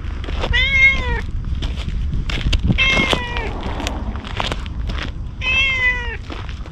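Orange tabby cat meowing three times, about two and a half seconds apart, each call under a second long and arching slightly up then down in pitch. Faint short clicks come between the meows.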